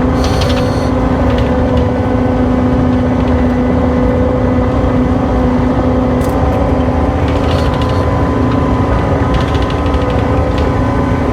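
John Deere skid steer's diesel engine running steadily at working speed, with a steady whine, and a few brief metallic rattles partway through.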